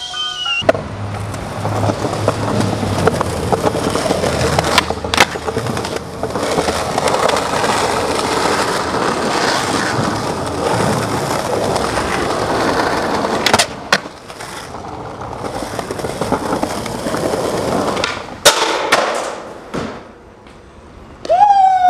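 Skateboard wheels rolling over concrete, with sharp board clacks of pops and landings about 5, 13 and 18 seconds in. Near the end there is a brief high sound that sweeps up in pitch.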